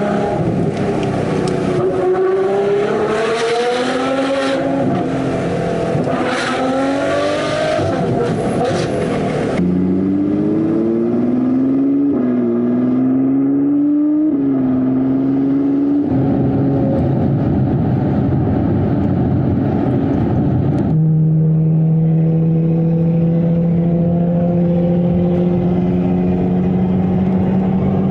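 Ferrari 812 Superfast's V12 through a Novitec straight-piped exhaust, revving up through the gears in repeated rising sweeps with drops between them, then holding a steady note for the last several seconds. The sound changes abruptly a few times, as at cuts between clips.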